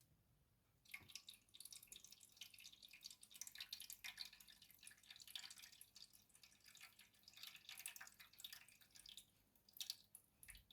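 Faint water trickling and dripping, starting about a second in and stopping just before the end: water flushed through the freezer's clogged drain hole under the evaporator.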